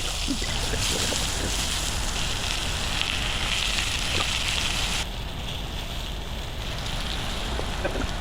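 Sliced onions, zucchini and squash sautéing in olive oil in a frying pan, a steady sizzle that drops sharply in level about five seconds in.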